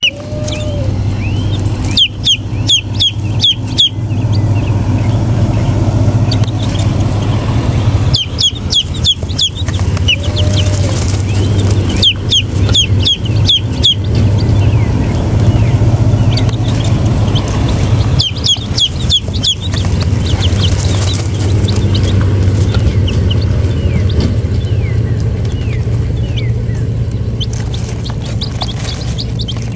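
Baby chicks peeping in short flurries of rapid, high, falling peeps every few seconds, over a steady low hum.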